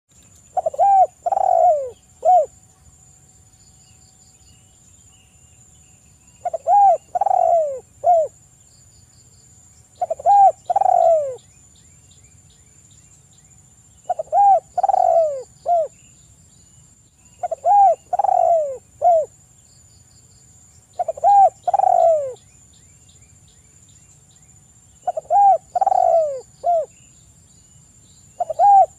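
Spotted dove cooing: a phrase of three or four deep, falling coos, the last one set apart, repeated about every three and a half seconds, eight times. A faint steady high whine and a few faint high chirps lie underneath.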